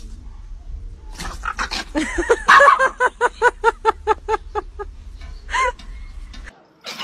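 A dog yapping in a quick run of high, short barks, about four a second, during rough play, followed by one more bark near the end.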